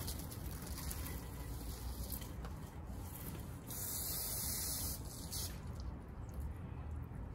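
Spray hissing during a car hand wash, with a stronger continuous burst of spray about four seconds in lasting nearly two seconds, over a steady low rumble.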